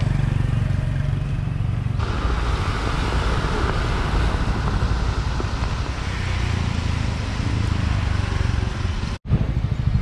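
Steady road traffic by a busy street, with motorbikes and cars passing. The sound changes abruptly about two seconds in and drops out for a split second near the end.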